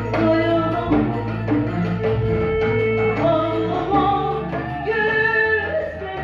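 Live Turkish saz ensemble playing, with a woman singing long held notes over a regular hand-drum beat.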